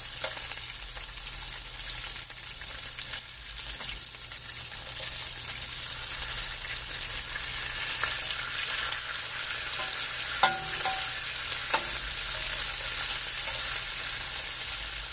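Pork chops sizzling steadily in a hot frying pan, with a few sharp clicks of a knife and spatula against the pan, the loudest about ten and a half seconds in.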